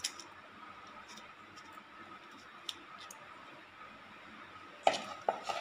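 A few faint clicks of a steel spoon as thick batter is spooned into a paper cupcake liner, with two sharper clicks near the end as the spoon knocks against the cup.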